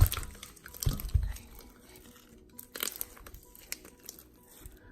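Sticky Elmer's glue slime being kneaded and pulled by hand: a few irregular handling noises, the loudest at the start and about a second in. The slime is still tacky, not yet fully set.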